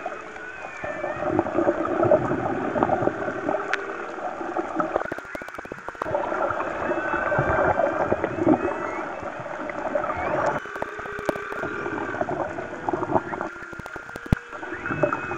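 A pod of dolphins heard underwater: many short rising and falling whistles overlapping one another, with scattered clicks, over a steady underwater hiss.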